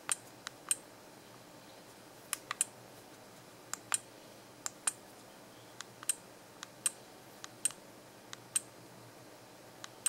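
Small plastic buttons on an SJ8000 action camera being pressed to step through its menus: short sharp clicks, most coming as a quick double click, about ten presses.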